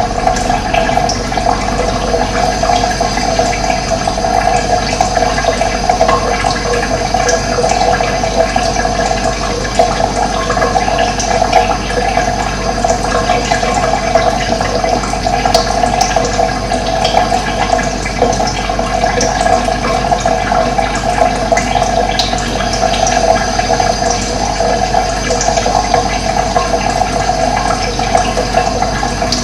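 Running water rushing steadily and loudly, with no breaks.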